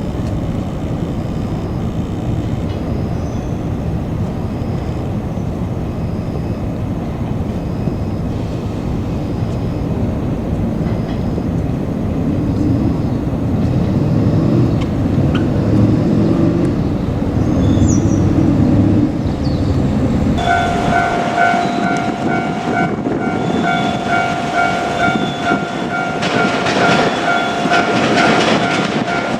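A low rumble swells a little past the middle. About two-thirds of the way in, a level crossing's electronic warning bell starts ringing steadily, and the running noise of an approaching JR Kyushu 817 series electric train grows toward the end.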